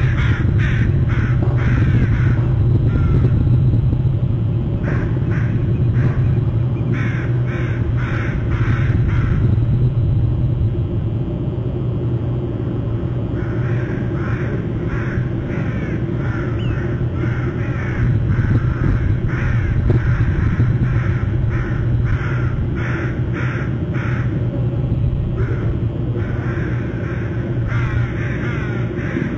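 Birds give harsh calls in repeated series, with brief lulls, over a steady low hum.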